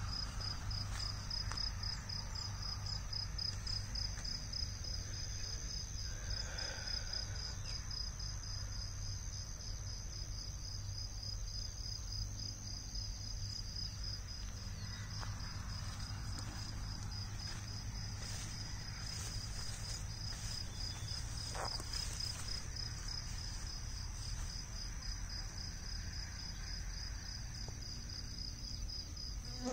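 Insects chirping in a high, steady, evenly pulsed trill, over a low rumble.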